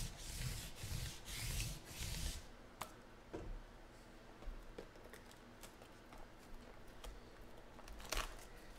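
A lint roller is rolled back and forth over a tabletop in about five quick sticky rasping strokes, about two a second, then stops. After that come small handling clicks, and a short crinkle near the end as a card box is opened.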